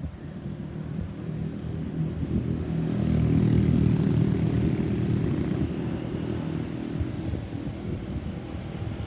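Engine noise of a passing vehicle, a low rumble that swells to its loudest about three and a half seconds in and then slowly fades. No siren is sounding.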